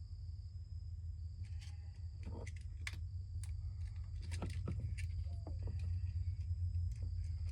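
Wires and a screwdriver being handled while wiring an electrical outlet: scattered light clicks and taps. A steady low hum and a faint, steady high-pitched tone run underneath.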